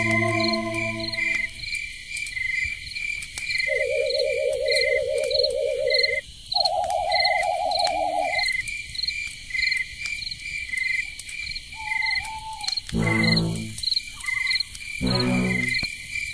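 Steady insect chirping, short chirps at two alternating pitches about three times a second. Two long warbling tones come midway, and two short low croak-like calls come near the end.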